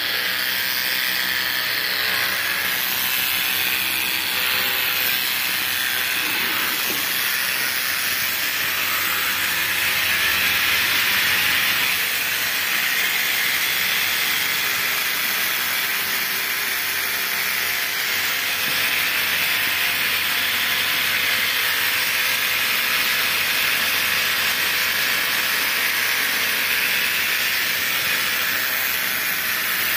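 Electric dog-grooming clipper running steadily, a continuous even hiss-like buzz as it cuts through a Tibetan mastiff's thick coat.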